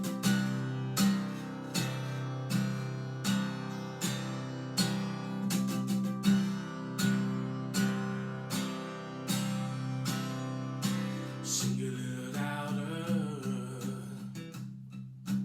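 Acoustic guitar strummed in a steady rhythm, about one strum every three quarters of a second, over sustained low notes. The strumming thins out about twelve seconds in.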